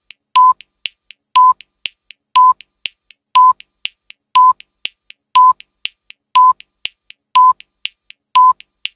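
Countdown timer sound effect: a short, high electronic beep once a second, nine in all, each with a sharp click, and lighter ticks between the beeps.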